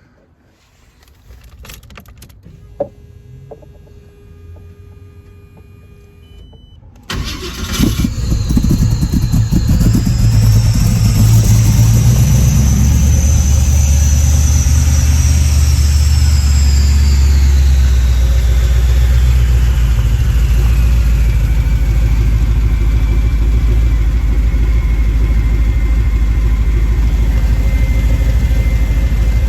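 1985 Oldsmobile Cutlass Supreme engine starting about seven seconds in, then running at a raised idle that slowly settles lower. A high whine rises and then falls with the revs.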